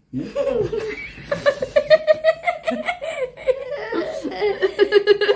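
A man laughing at length, a rapid run of pulses on a held pitch that drops lower partway through.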